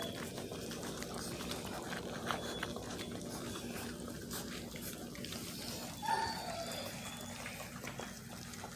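Basset puppies eating together from a metal bowl: steady wet slurping and chewing with scattered small clicks. About six seconds in, one puppy gives a short whimper that falls in pitch.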